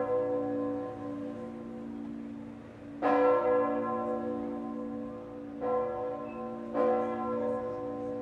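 Church tower bells ringing in slow, irregular strokes: one strike about three seconds in, then two closer together in the second half. Each strike rings on with a long, slowly fading hum that overlaps the next.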